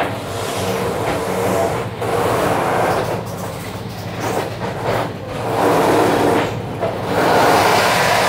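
Running noise of a moving passenger train heard from inside the coach: a steady sound of wheels on rails that grows louder near the end.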